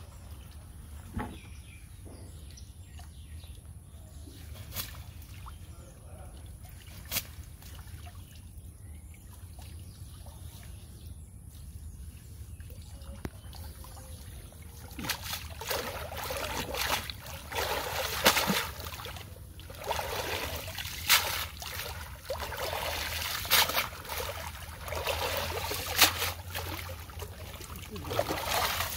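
Water splashing and streaming off a cast net as it is pulled up out of a pond, with sloshing from wading legs. The first half is mostly quiet with a few faint clicks; the splashing starts about halfway and comes in repeated bursts.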